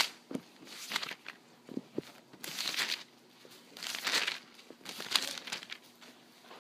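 Thin Bible pages being leafed through: a series of short paper rustles, with a couple of soft taps in the first two seconds.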